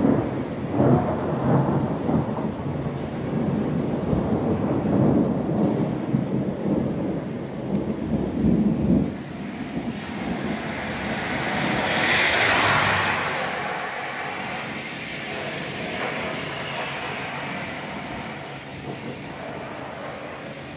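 Thunder rumbling in long, uneven rolls for about nine seconds, then dropping away sharply, leaving steady rain. About twelve seconds in, a hiss swells up and fades again, and the rain eases toward the end.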